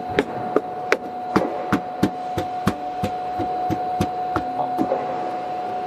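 Metal control box being fitted by hand against a stainless-steel machine panel: a string of irregular sharp clicks and knocks, two to three a second, over a steady tone.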